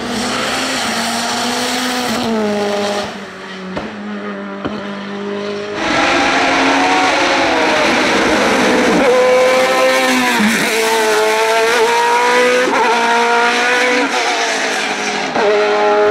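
Racing car engines at full throttle on a hillclimb, revving up and dropping in pitch at each upshift. It gets louder about six seconds in, as a car passes close.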